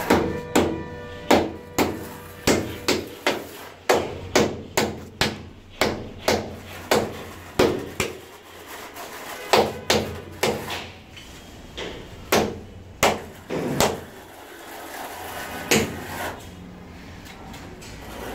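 A run of sharp knocks, about two a second, thinning out after about eight seconds: ceramic wall tiles being tapped down into their bed of cement tile adhesive.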